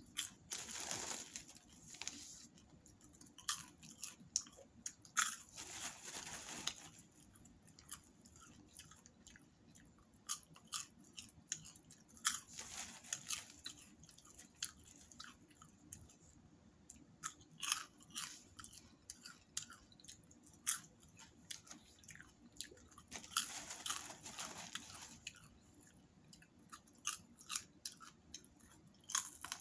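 Popcorn being chewed close to the microphone, with runs of crisp crunches and short pauses between mouthfuls. A plastic bag crinkles now and then as a hand reaches in for more.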